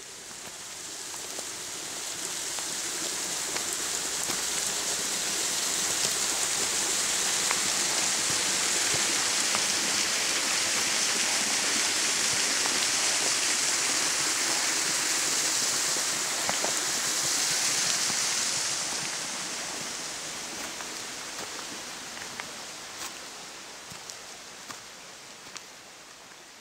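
Small mountain stream splashing down a mossy stone cascade: a steady rushing hiss that swells over the first few seconds and fades away over the last third. Footsteps on the gravel path tick in near the end.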